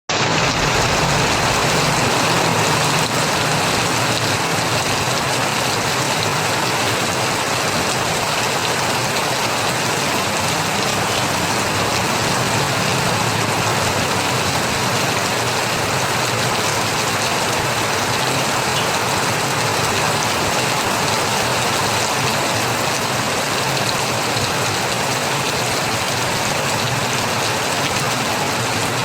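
Steady heavy rain falling and pattering on surfaces, an even, continuous hiss.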